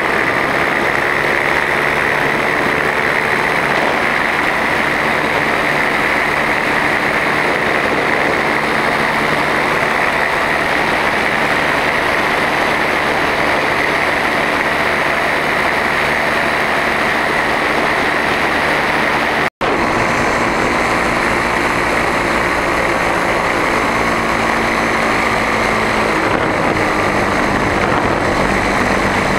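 Powered paraglider's paramotor engine and propeller running steadily in flight, a loud continuous drone. The sound cuts out for an instant about two-thirds of the way through, then carries on.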